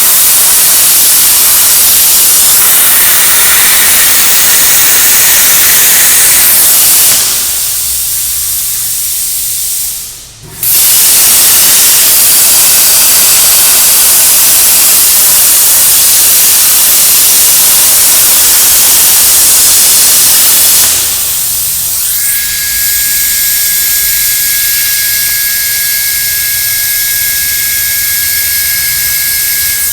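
Hypertherm plasma torch on a CNC cutting table cutting, a loud steady hiss. It breaks off briefly about ten seconds in and starts again. From about twenty-two seconds in, two steady high tones sound over a quieter hiss.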